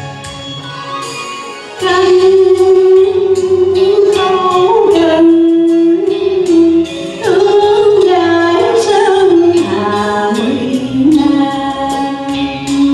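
A woman singing long, held notes with a wavering vibrato in Vietnamese style over instrumental accompaniment. The voice comes in loudly about two seconds in, after a quieter instrumental opening, and drops to a lower pitch about ten seconds in.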